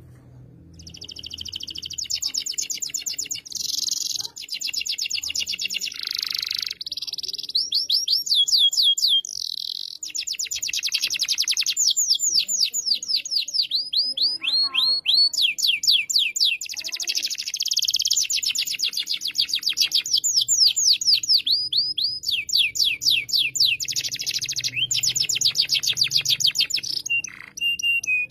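Domestic canary singing a long song of fast rolling trills. Each phrase is a quick run of repeated high sweeping notes, with short pauses between phrases. The song starts about a second in.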